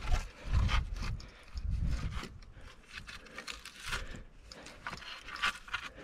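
Dead wooden poles being handled for a shelter frame: knocks and scrapes of wood against wood and dry, gravelly ground. Dull thumps in the first two seconds, then lighter crackling clicks.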